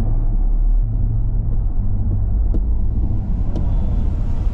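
Motor vehicle running steadily, a continuous low engine and road rumble.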